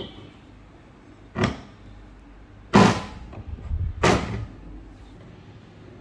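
Metal parts of a small drill stand knocking together as they are handled and fitted: three sharp knocks, the second and third loudest, with light clatter between the last two.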